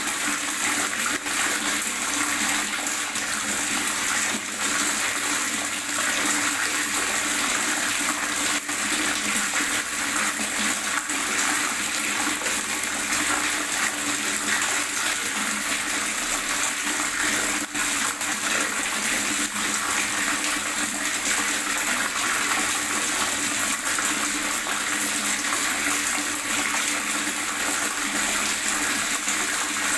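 Water gurgling and rushing in a steady stream.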